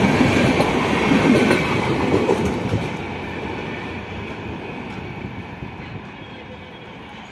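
Express passenger train's coaches running past on the track, loud for about the first three seconds and then fading steadily as the train moves away.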